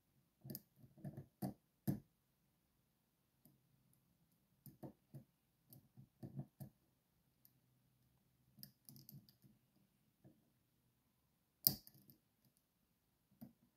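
Lock pick and tension tool working the pins of a Magnum Superior high-security pin-tumbler cylinder under counterclockwise tension: faint, irregular clicks and scrapes in small clusters, with one sharper click about twelve seconds in.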